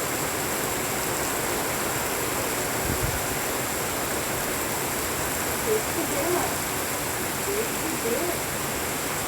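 Steady rain falling. A few faint, short calls sound through it from a little past halfway to near the end.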